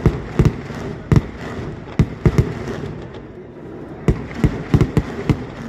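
Kerala temple fireworks (vedikkettu) going off: a rapid, irregular string of sharp bangs, some in quick clusters, over a continuous rumble, with a short lull in the middle.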